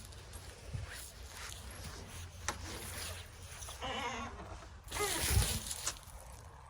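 Domestic cat meowing twice, about four and about five seconds in; the second call is louder. Rustling and light clicks from movement in grass.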